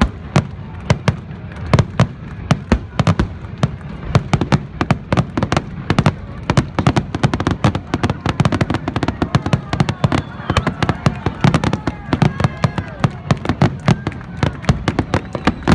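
Aerial fireworks going off in rapid succession: a continuous barrage of sharp bangs and crackles, several a second.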